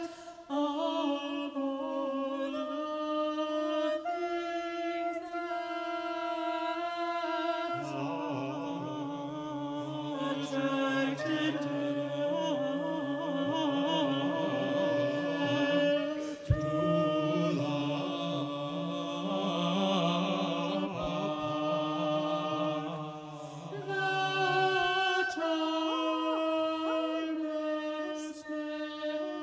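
Six-voice a cappella vocal ensemble (soprano, mezzo-soprano, countertenor, tenor, baritone and bass) singing long held chords in a contemporary classical piece. Low voices join about eight seconds in and drop out a few seconds before the end, and a single sharp knock sounds about halfway through.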